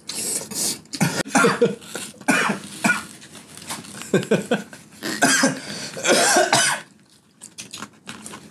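A man coughing over and over, with throat clearing, in a fit brought on by very spicy jjamppong. The coughs come in quick short bursts for about seven seconds, then stop.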